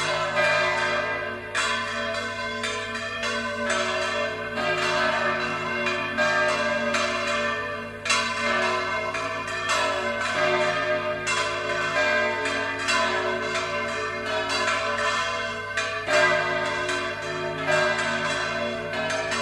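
Church bells rung in volteo, the Valencian style in which the bells are swung right over in full circles: several bells strike again and again in a dense, unbroken, overlapping peal.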